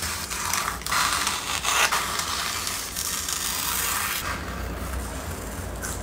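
Masking tape being peeled off a painted canvas, a dry crackling tear that is loudest for the first four seconds, then a quieter rustle.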